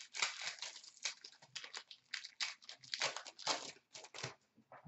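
Hockey trading cards and a foil card-pack wrapper being handled, in a run of short, dry rustles and crinkles.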